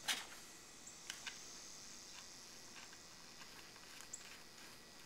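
Scattered light clicks and ticks of nuts being fitted and spun by hand onto the bar studs of a small chainsaw's side cover. The sharpest click comes at the very start, a pair follows about a second in, and fainter ticks come after.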